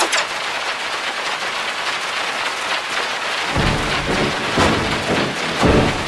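A dense, chaotic pile-up of cartoon sound effects making a steady, rain-like wash of noise with many short crackles. A deep rumble joins in about three and a half seconds in.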